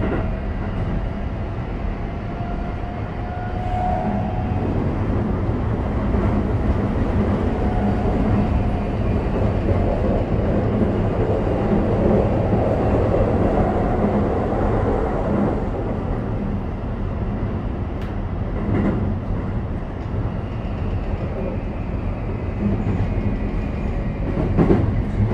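Running sound inside a Toei 5500 series electric train car: a steady rumble of wheels on rail with occasional rail-joint clacks. A faint whine from the Mitsubishi full-SiC VVVF inverter and traction motors is heard in the first few seconds.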